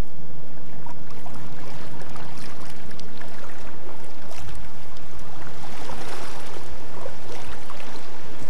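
Kayak paddle strokes: the blades dipping and splashing, with water running and dripping off them, over a steady low hum.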